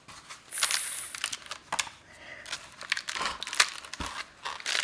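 Corrugated cardboard parts of a cat scratcher tower scraping and rustling as they are slid together, with a hissing scrape about a second in and scattered sharp taps after it.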